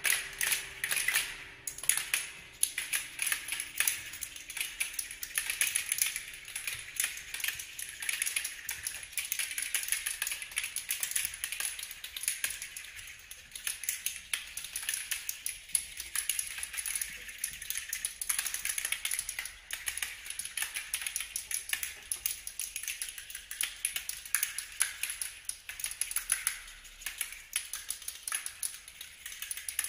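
Contemporary chamber ensemble playing a dense, rapid patter of dry clicks and taps, mostly high-pitched, made with extended playing techniques. Faint low held tones fade out during the first several seconds.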